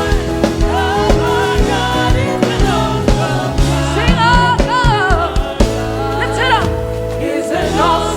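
Live gospel praise music: a solo voice sings a bending melody over a band with keyboard, bass and a steady drum beat.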